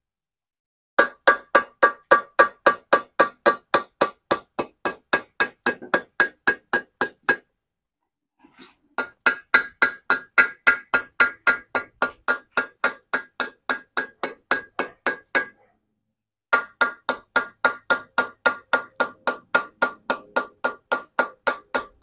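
Small hammer tapping steadily, about four strikes a second, around the rim of a newly fitted cylinder liner in an Isuzu Panther diesel engine block. Each metal-on-metal tap rings at the same pitch. The tapping comes in three runs, with short pauses about 7 and 16 seconds in.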